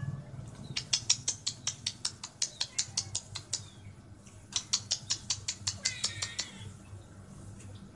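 A kitten meows once, a short call about six seconds in. Before that come two runs of rapid sharp ticks, about six a second, which are the loudest sound, over a low steady hum.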